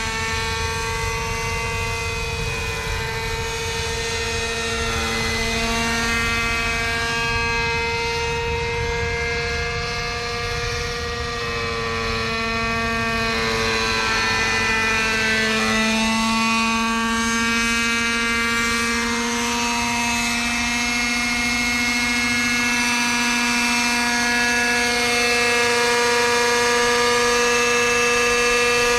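Hirobo Falcon 555 model helicopter's OS MAX 45 FSR two-stroke glow engine and rotors running steadily in flight, a droning whine whose pitch shifts up and down as the helicopter moves about, then steadies as it hovers low near the end.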